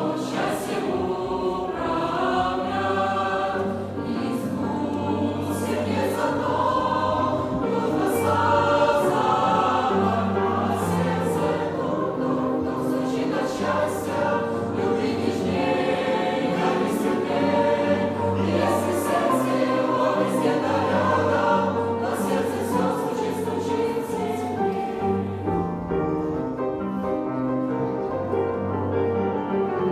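Choir singing a Christian song over instrumental accompaniment. The voices drop out about 25 seconds in, leaving the accompaniment.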